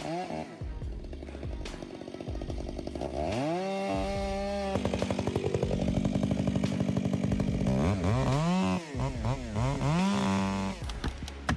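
Two-stroke chainsaw engine running and being throttled: it revs up sharply about three seconds in and holds. Later it is blipped up and down several times in quick succession before dropping back near the end.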